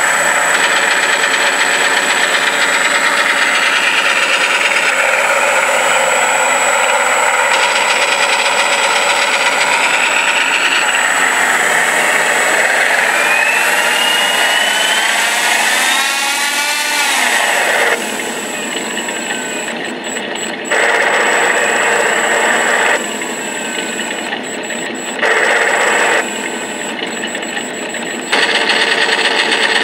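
Simulated B-25 radial engine sound from a ShockWave sound module playing through speakers in a model's nacelles, running steadily. About halfway through, a whine rises in pitch and then falls away as the engine sound drops back. Then loud bursts of simulated machine-gun fire come three times over the quieter engine sound.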